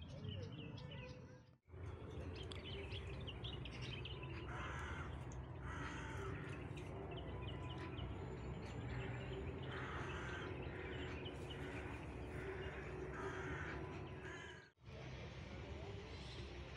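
Birds calling in a garden: a run of harsh, crow-like caws, about six in all through the middle of the stretch, over the thin chirps of smaller birds. The sound cuts out briefly twice.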